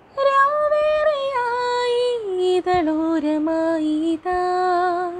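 A woman singing a slow, gently falling melody in long held notes, with no accompaniment. The voice steps down in pitch twice and pauses briefly for breath twice.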